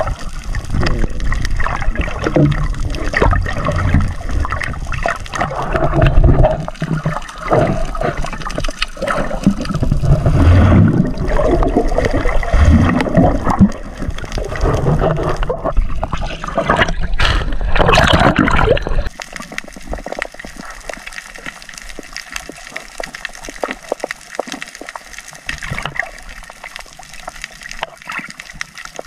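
Water gurgling and rushing around a camera held underwater, with bubbles and sudden strokes as the swimmer moves. It is loud and churning until about two-thirds through, then drops to a quieter steady hiss.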